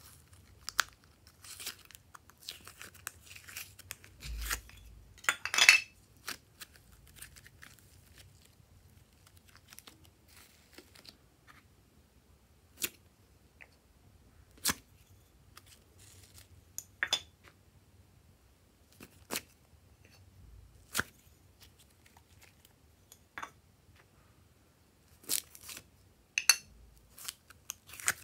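Glossy slime being pulled and peeled out of small clear plastic moulds: sticky crackling and tearing as it comes away, with sharp clicks and taps of the plastic. The sounds come one by one at irregular gaps, the loudest a crackly burst about five seconds in.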